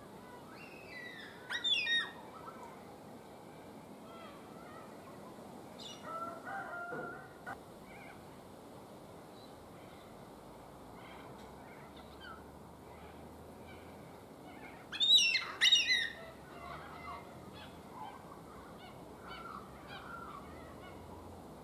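Carnaby's black cockatoos calling at a nest hollow: two loud bursts of harsh calls, about two seconds in and again about fifteen seconds in, with softer scattered calls between.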